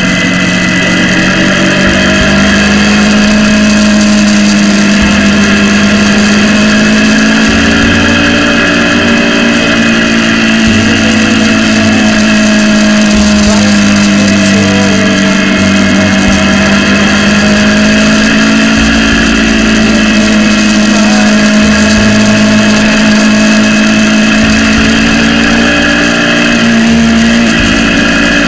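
KTM Duke 200's single-cylinder engine running at steady cruising revs, its pitch drifting gently up and down through the bends. Wind buffets the microphone with a low rumble.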